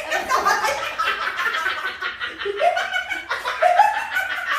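Several people laughing together.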